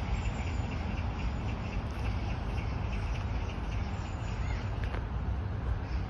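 Steady outdoor park ambience: a constant low rumble with faint, quick high chirping repeating several times a second.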